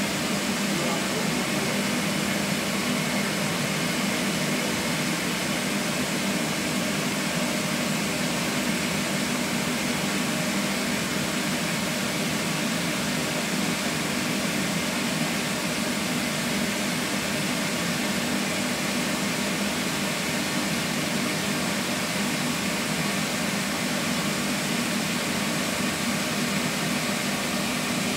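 Electric inflation blower running steadily, filling a bouncy castle with air: a constant fan noise with a low hum underneath.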